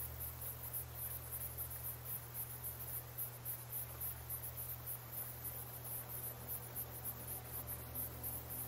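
Crickets chirping in a fast, even rhythm, several chirps a second, over a low steady hum.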